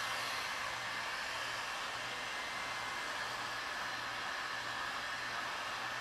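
Handheld electric heat gun running steadily: an even blowing rush with a low motor hum. It is warming the vinyl convertible-top material to make it pliable for stretching.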